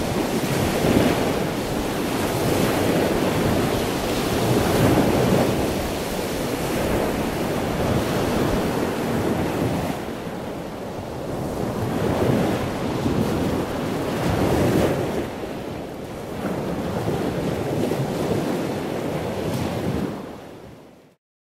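Ocean surf: waves washing in and out, the noise swelling and falling back every few seconds, then fading out near the end.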